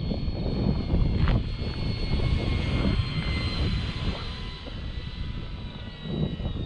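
Foam RC model F6F Hellcat in flight, its motor and propeller giving a steady high whine that sinks slightly in pitch near the end, over a heavy uneven low rumble.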